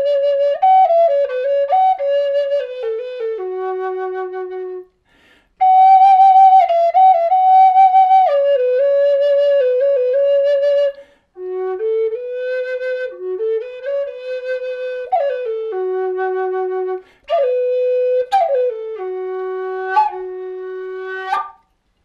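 High Spirits Loon bird-head Native American flute in F-sharp minor, made of aromatic cedar, playing a slow melody in four phrases with short breath pauses between them. Some held notes waver with vibrato, and the last phrase settles on the low F-sharp.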